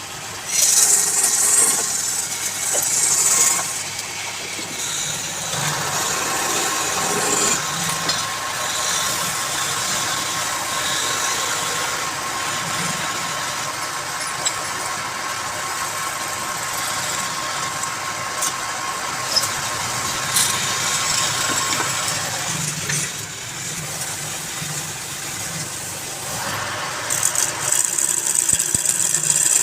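Wood lathe motor running steadily, with a tool scraping against the spinning wood; the scraping hiss is loudest about a second in and again near the end.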